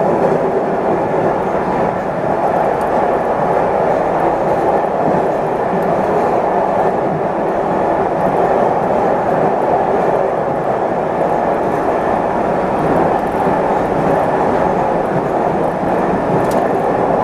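JR 213 series electric train running steadily at speed, the even rumble of its wheels on the rails and its running gear heard from inside the driver's cab.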